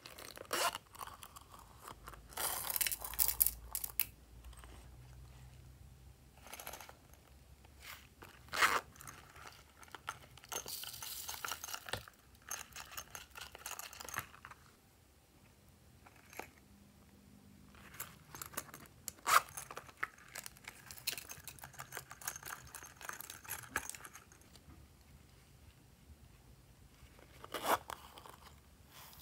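Hands unzipping and handling small silicone zipper pouches and shaking out beads, sequins and glitter onto trays of slime. There are a few stretches of rustling and scraping, each lasting a second to a few seconds, with sharp single clicks in between.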